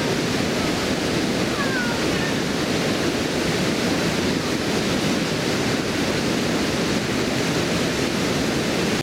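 Water pouring over a stone river weir: a steady, unbroken rush of white water with no pauses or changes.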